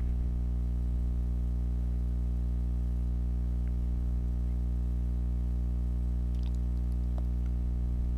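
A steady low hum with many overtones, unchanging throughout, with a few faint light ticks late on.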